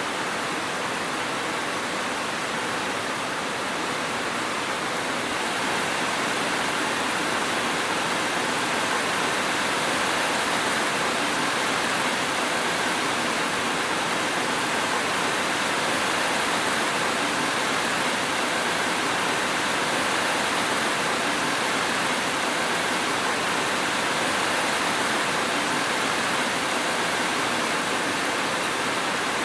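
Steady, dense rainfall hiss with no distinct drops or thunder, swelling slightly a few seconds in.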